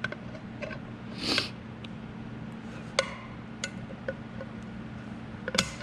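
Scattered metallic clinks and knocks of lathe parts and hand tools being handled, with a short scrape about a second in, over a steady low shop hum.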